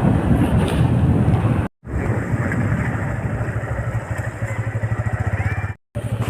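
Motorcycle engine running with a fast, even pulsing beat, cut off abruptly twice by edits.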